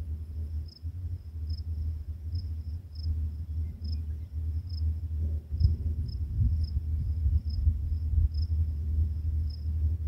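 Crickets chirping, short high pulses roughly once a second over a faint steady trill. A louder, uneven low rumble runs underneath.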